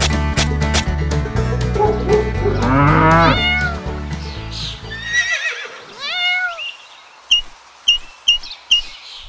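Background music with farm-animal sound effects laid over it: a cow mooing about three seconds in, then a cat meowing as the music drops out. Near the end, five short high chirps.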